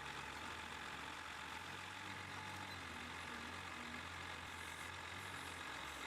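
Heavy machine's engine idling steadily, a faint low hum with no change in speed.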